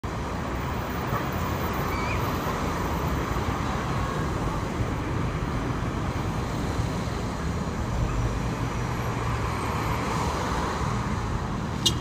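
Steady traffic noise of cars driving past on a city street.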